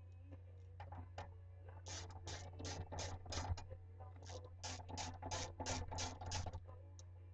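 Socket ratchet clicking in two runs of quick strokes, about three a second, with a short pause between, as the bolts of a lawnmower engine's blower housing are run in.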